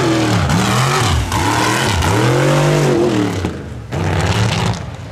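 One-ton class mud truck engine revving hard, its pitch swelling up and falling back several times as the driver works the throttle over the dirt track.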